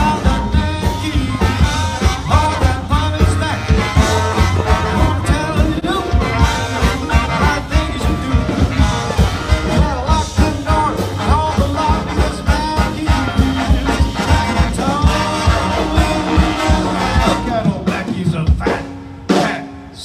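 Live swing band playing: horns, upright bass and a steady beat, with a male singer on the microphone. The music drops away near the end.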